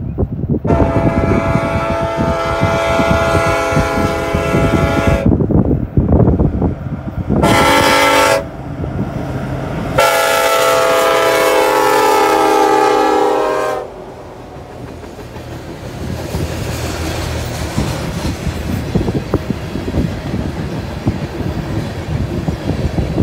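Diesel locomotive air horn on a BNSF coal train sounding a long blast, a short blast and another long blast, the grade-crossing warning, over the low rumble of the locomotives. After the last blast, about two-thirds of the way through, the coal hopper cars roll past with a steady noise of wheels on rail.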